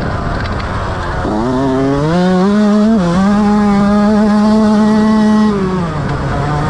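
Motocross bike engine heard up close on board. About a second in it revs up, dips briefly, then holds steady high revs for a couple of seconds before dropping back off the throttle near the end.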